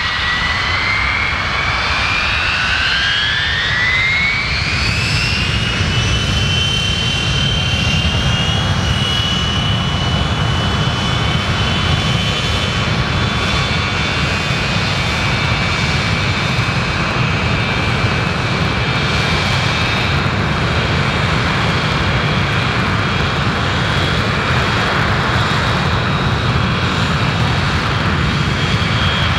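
Boeing E-3A Sentry's four Pratt & Whitney TF33 turbofans spooling up. A whine rises in pitch over the first five or six seconds and then holds steady and high over a loud low rumble.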